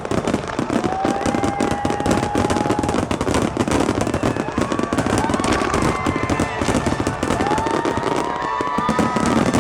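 Aerial fireworks going off in a dense barrage of rapid bangs and crackling, with a few whistling tones that glide slightly upward.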